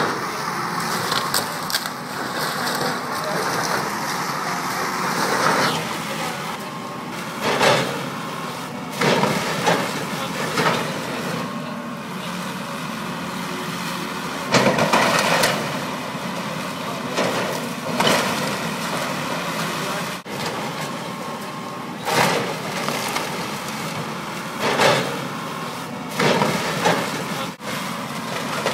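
John Deere 892E LC excavator running steadily as it tears into a wood-frame house. Repeated loud cracks and crashes of splintering timber and falling debris come about ten times.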